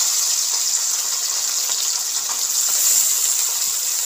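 Small mourola fish, freshly dropped into hot mustard oil in a metal kadai, sizzling with a steady high hiss.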